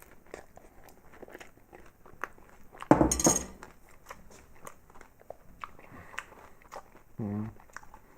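A person eating a microwave tray meal of chili cheese fries: light clicks of cutlery on the tray, with chewing. About three seconds in comes one loud short burst of noise, and near the end a brief hummed voice sound.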